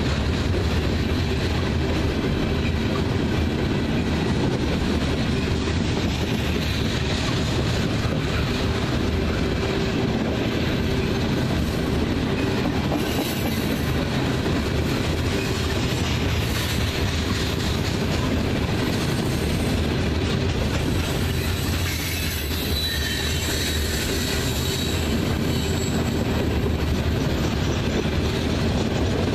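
Covered hopper cars of a freight train rolling past close by: a steady rumble and clatter of steel wheels on the rails. A faint high wheel squeal comes in about two-thirds of the way through.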